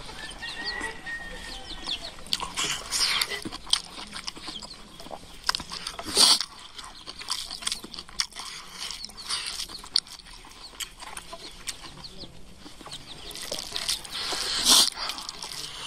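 Close-up mouth sounds of eating by hand: irregular chewing and lip-smacking clicks, with two louder sucking bursts, about six seconds in and near the end. Chickens cluck faintly in the background.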